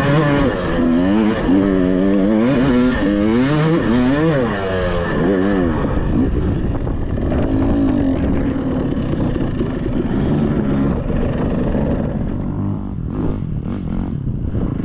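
Dirt bike engine revving up and down over and over under throttle for the first six seconds, then running steadier at lower revs, with a few knocks near the end.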